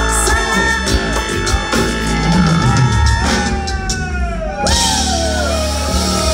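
Tejano band playing live at full volume: a woman sings lead over drums, electric bass, accordion and keyboard.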